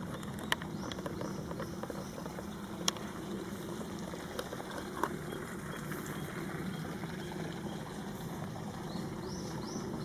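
Steady outdoor background noise with a few sharp clicks and short, high rising chirps about a second in and again near the end.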